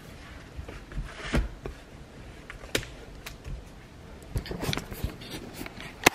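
Handling noise: scattered light clicks, knocks and rustles of small objects being moved, with a sharper click just before the end.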